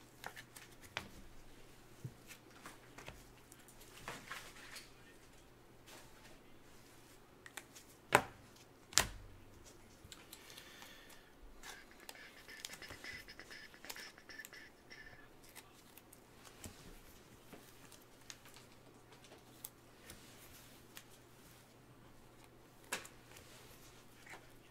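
Quiet handling of football trading cards: soft sliding and rustling as cards are moved, with scattered taps and two sharp clicks about eight and nine seconds in.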